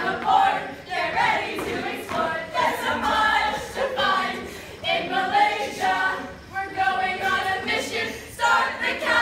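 A group of young people singing together in unison, in short phrases.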